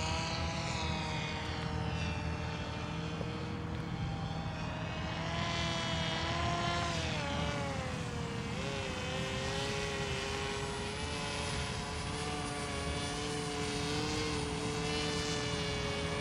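Mantis autogyro in flight, its propeller motor droning steadily. The pitch slides down, climbs back, drops about eight seconds in, then holds level as the aircraft passes and turns.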